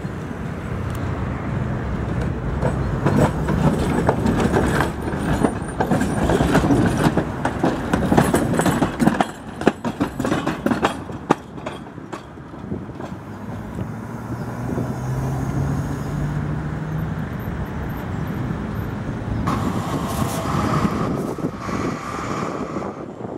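Tatra T6A5 tram passing close by, its wheels rumbling and clicking sharply over the rails for several seconds, then a low rising electric motor hum as it pulls away.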